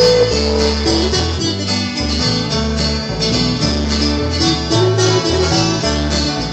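Country gospel instrumental intro: guitar playing over steady alternating bass notes, before the vocal comes in.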